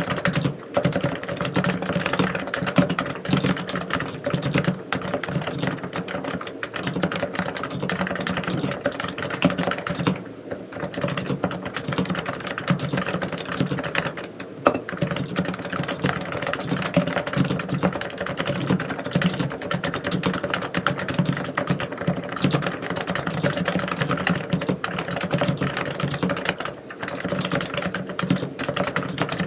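Continuous, fast typing on a Realforce R3 tenkeyless keyboard with 45 g silenced Topre electro-capacitive switches. It is a dense, steady stream of keystrokes, with brief pauses about ten seconds in, about fourteen seconds in and again near the end.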